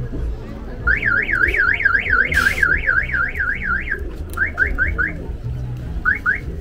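Car alarm sounding: a fast warbling electronic tone, rising and falling about four times a second for about three seconds, then switching to short rising chirps, four in quick succession and two more near the end. A steady low rumble and a brief hiss midway lie underneath.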